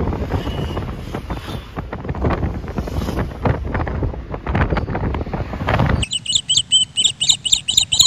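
Wind buffeting the microphone over the road noise of a moving vehicle. About six seconds in, the sound cuts abruptly to a bird chirping rapidly and regularly, about three or four calls a second.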